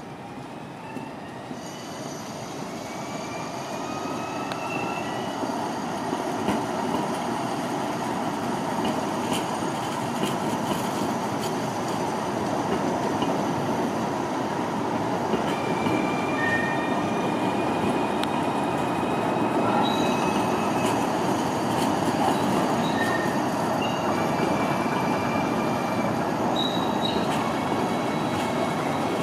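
Alstom Citadis Dualis tram-trains running past at close range: a steady rolling rumble that builds louder, overlaid with thin high whines, some rising in pitch.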